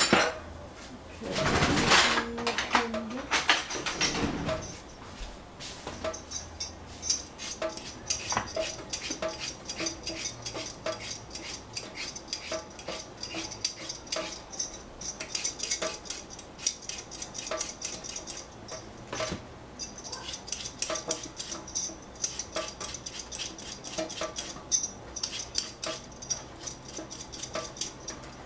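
Metal vegetable peeler scraping along a cucumber in quick repeated strokes over a stainless steel sink. There is a louder clatter of handling about two to four seconds in.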